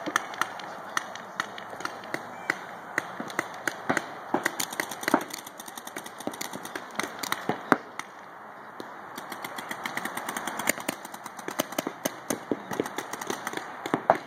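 Paintball markers firing across the field: sharp pops, some single and some in quick runs of several shots a second.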